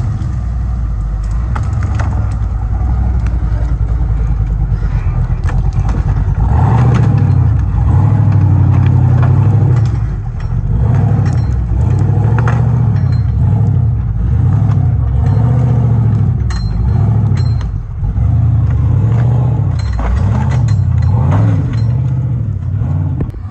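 Off-road competition 4x4 truck engine running, then revving in repeated surges about every second and a half from about a quarter of the way in, with scattered sharp knocks.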